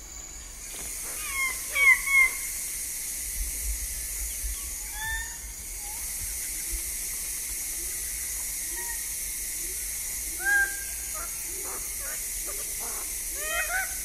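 Greater bird-of-paradise calling close up: three loud, short calls in quick succession about two seconds in, single calls around five and ten seconds in, and a faster run of calls starting near the end. A steady high hiss of forest ambience and fainter calls run underneath.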